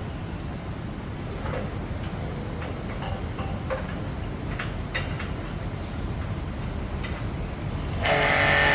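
A machine runs with a steady low rumble and scattered light clicks. About eight seconds in, something louder cuts in suddenly with a steady whine.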